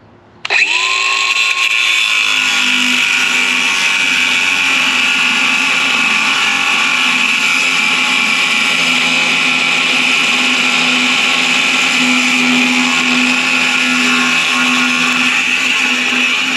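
An electric angle grinder switched on about half a second in, spinning up quickly, then running steadily while cutting through a steel weld.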